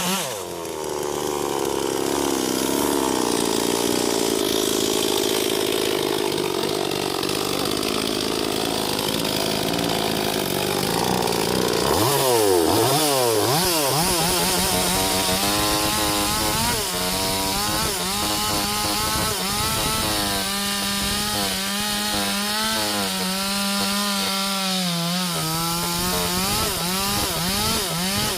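Two two-stroke chainsaws cutting sengon wood, the engines running hard with their pitch sagging and recovering as the chains bite. About twelve seconds in the revs swing sharply down and up before settling back into a wavering cut.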